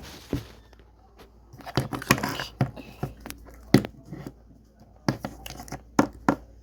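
Small plastic toy figures being handled: an irregular series of clicks and knocks, with a busier patch of handling noise about two seconds in.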